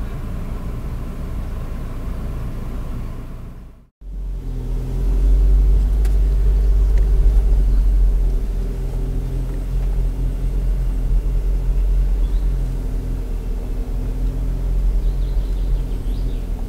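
Audi Q5 driving along a dirt forest track, its engine and tyres a steady low rumble heard from inside the cabin. The sound fades out briefly about four seconds in and comes back louder.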